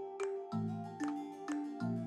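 Background music: a light melody of short notes, about two a second, over low held chords.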